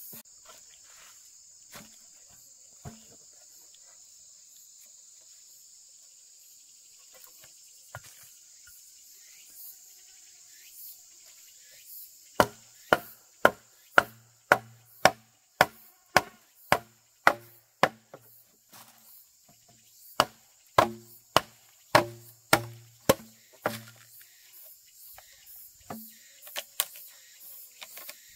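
A run of sharp blows on wood starting about halfway through, roughly two a second with a short break, after a few scattered knocks. Insects buzz steadily in the background.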